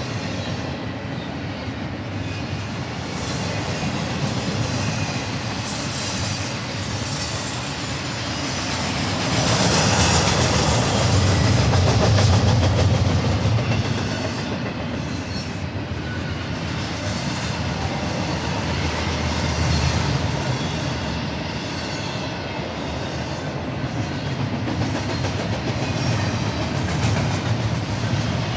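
Union Pacific freight train cars rolling past at speed, steel wheels clattering over the rail joints in a continuous rushing din that swells louder about ten seconds in.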